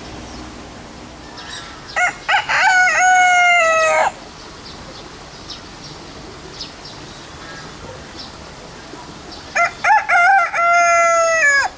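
Silkie rooster crowing twice. Each cock-a-doodle-doo opens with two short notes and ends in a long held note that drops in pitch as it cuts off.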